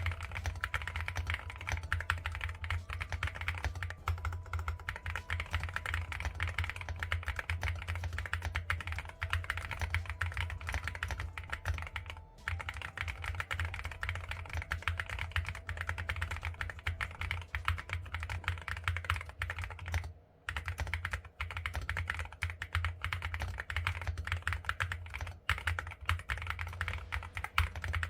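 Continuous fast typing on an AKKO MU-01 custom mechanical keyboard with a wooden case: dense key clacks, pausing briefly about twelve and twenty seconds in.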